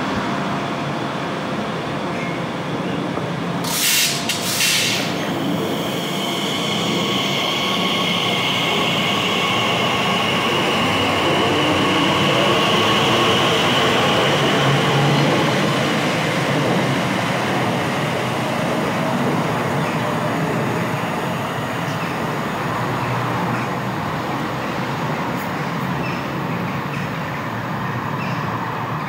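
Class 345 electric multiple unit pulling away from a station platform: two short sharp bursts about four seconds in, then a steady high electric whine over the rumble of the wheels, which eases as the train leaves.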